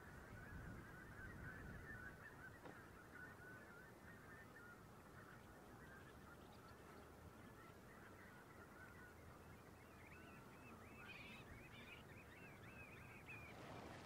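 A large, distant flock of coastal waterbirds calling all at once: a faint, continuous chatter of many overlapping honking calls. The calls grow busier and higher-pitched about ten seconds in.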